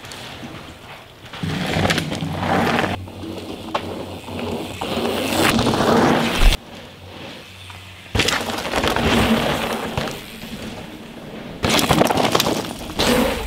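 Downhill mountain bike tearing over rough trail: tyres skidding and crunching on dirt and rock, with chain slap, suspension knocks and rattling frame hits. It comes in loud passes of a few seconds each, cut off abruptly between shots.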